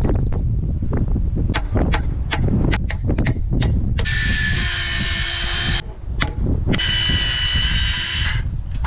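Power drill driving screws in two whirring runs of about a second and a half each, after a scatter of sharp knocks and taps. Wind rumbles on the microphone throughout.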